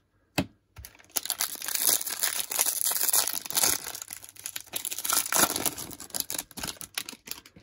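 Foil wrapper of a Topps 2023 Update jumbo pack being torn open by hand, crinkling and crackling continuously from about a second in until near the end.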